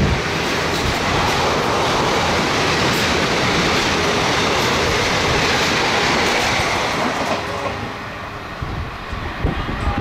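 Coaches of an express train passing at speed, a loud rushing rumble of wheels on rails. It drops off sharply about eight seconds in as the last coach goes by and the train draws away.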